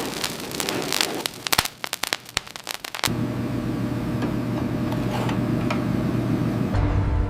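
Dense sharp crackling and snapping for about three seconds, then it cuts to a steady noisy mechanical hum with a low drone.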